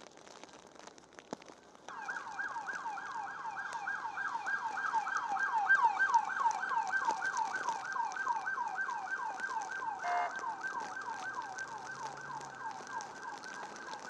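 Police car siren sounding in a fast yelp, rapid falling sweeps about four a second, starting suddenly about two seconds in. A short blast of a different tone cuts in briefly about ten seconds in.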